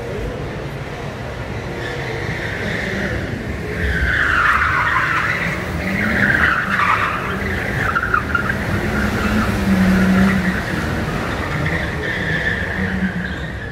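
A car's tyres squealing as it slides round a cobbled corner at speed, with its engine revving and the engines of following vehicles driving past.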